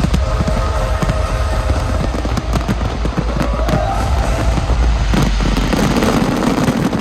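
Fireworks display: rapid crackling bangs over a constant deep rumble, with music playing along.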